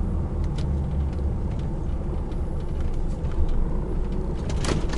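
HGV's diesel engine running steadily at low revs, heard from inside the cab as the truck moves slowly, a deep even rumble with a few faint clicks.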